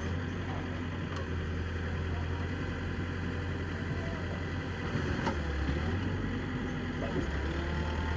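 Diesel engine of a JCB backhoe loader running steadily during soil levelling, a little louder from about five seconds in, with a few faint knocks.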